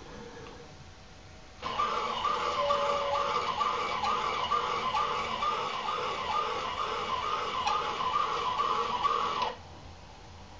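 Axis drive motors of a CNC-converted Optimum BF20L milling machine running through a repeated motion, a whine that rises and falls about twice a second. It starts abruptly a couple of seconds in and stops shortly before the end.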